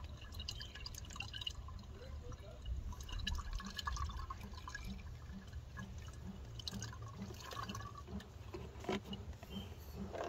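Synthetic 5W-20 motor oil glugging out of a quart bottle through a plastic funnel into an engine's oil filler, in a regular run of gulps about two or three a second. A single knock near the end.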